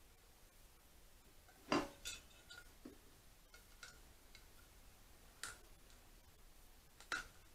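A few light, irregular knocks and clicks as rubber inlet trumpets are pushed into an airbox base plate and the plate is handled, the loudest about two seconds in.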